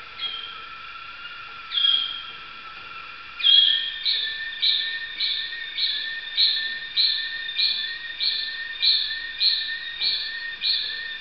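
Waterslager (Malinois) canary singing. Two separate high notes come first, then from about a third of the way in a steady run of about a dozen repeated notes, a little under two a second, over a held lower note.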